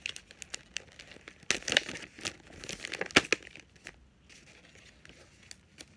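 Plastic packaging crinkling and rustling as it is handled, in irregular crackles that are loudest through the first half and then grow softer and sparser.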